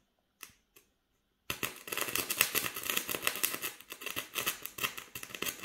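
A small ritual fire in a glass bowl, with a burning wooden splint held into it. After a few faint clicks it bursts into dense, rapid crackling and sputtering about a second and a half in, and keeps crackling.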